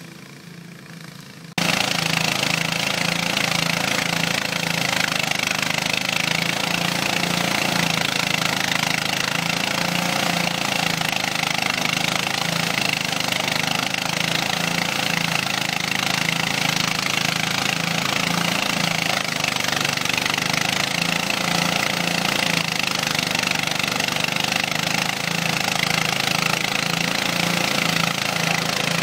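JB "Challenger" auto-feeding rice thresher running under load, its engine and threshing drum going steadily with a regular low throb as rice straw is fed through. It is quieter and more distant at first, then loud from about a second and a half in. The engine keeps running and does not stall.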